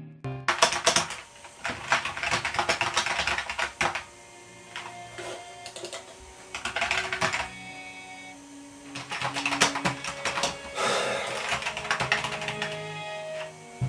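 Typing on a computer keyboard in several quick bursts of key clicks, with short pauses between them.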